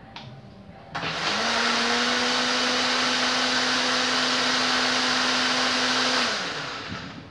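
Countertop electric blender switched on about a second in, running steadily at one speed while blending parmesan cheese with milk, then switched off and spinning down with a falling pitch near the end.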